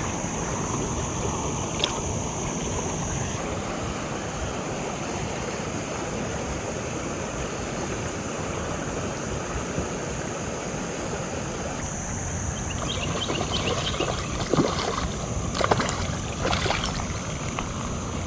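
Steady rush of flowing stream water, with a few short knocks and clicks near the end.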